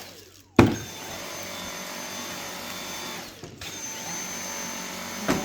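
Dyson cordless stick vacuum cleaner switching on with a sharp click about half a second in, then running steadily with a high whine, cutting out briefly past the middle.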